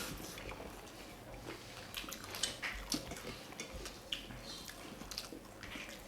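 People chewing meat and biryani, with scattered small, sharp clicks of eating.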